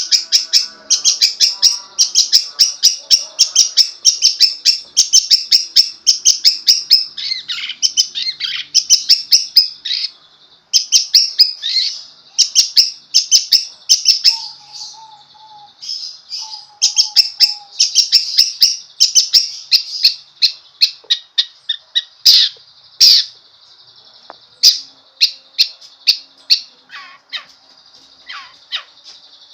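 Long-tailed shrike singing a loud, rapid, varied chattering song of short high notes, broken by brief pauses about ten and sixteen seconds in.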